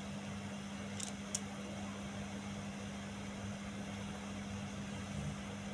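Steady low hum over an even hiss, with two faint light clicks about a second in from small steel mirror-riser bolts knocking together in the hands.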